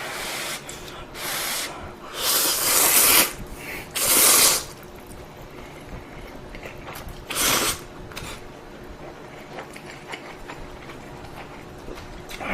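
A person slurping ramen noodles, five loud slurps in the first eight seconds, the third the longest, followed by faint small clicks.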